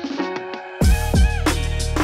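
Background music: a soft instrumental passage, then a full beat with kick drum and bass comes in a little under a second in.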